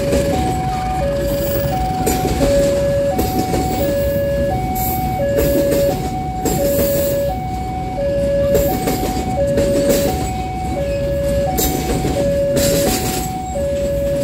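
Railway level-crossing alarm sounding two electronic notes in turn, about one every half second, over the rumble and wheel clatter of passenger coaches rolling past as a local train departs.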